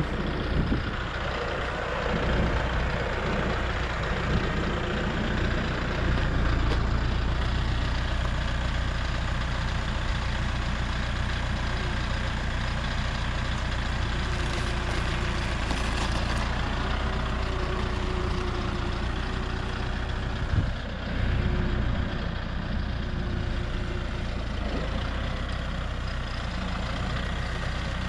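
Farm tractor engine running steadily at low speed while the tractor handles heavy beams, with a brief dip about two-thirds of the way through.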